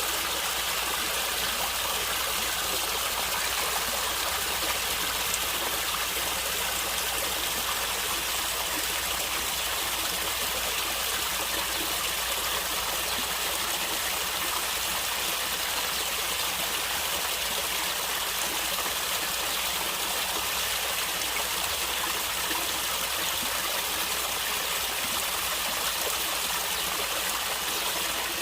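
Stream of water running and gurgling steadily over rocks.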